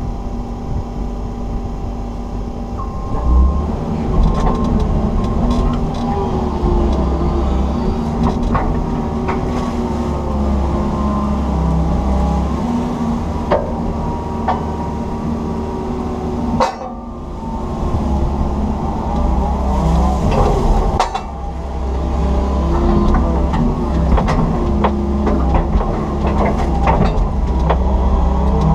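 Komatsu PC160 excavator heard from inside its cab while digging: the diesel engine runs steadily under load with whining tones that shift in pitch as the boom and bucket move, and scattered knocks throughout. The sound drops briefly about 17 seconds in and again around 21 seconds.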